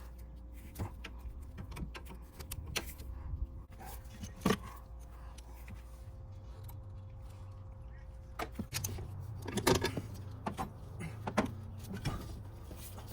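Scattered metallic clicks and clinks of hand tools and AC line fittings being worked loose and handled, the loudest about four and a half and ten seconds in. A faint steady hum runs underneath and stops about eight seconds in.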